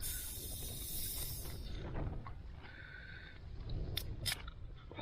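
Strong wind buffeting a tent, a low rumbling rush with a brief hissing gust at the start. Two sharp clicks about four seconds in.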